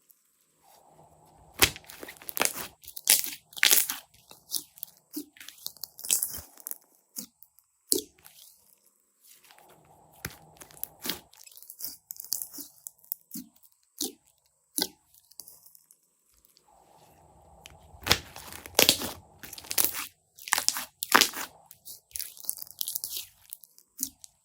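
Slime being squeezed, pressed and stretched by hand, making irregular crunchy clicks and crackles in bursts, with softer squishing and rustling between them.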